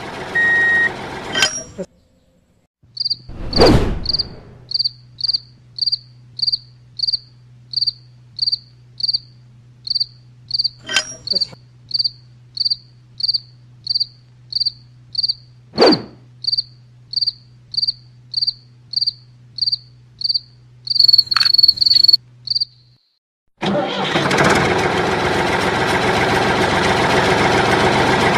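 Cricket chirping steadily, about two high chirps a second, over a faint low hum, with three brief sharp noises along the way. It starts after a reversing beeper's last beeps. About four seconds before the end, a diesel tractor engine sound sets in and runs steadily.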